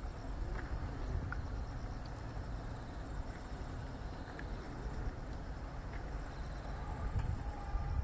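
Faint, high-pitched pulsing insect trills that come and go, over a steady low wind rumble on the microphone.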